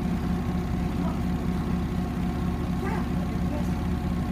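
Hoover Dynamic DYN 9164 D8PX washing machine running steadily, its motor giving a constant hum and whine with a low, evenly pulsing drone, typical of the drum spinning at speed late in the Rapid 30 cycle.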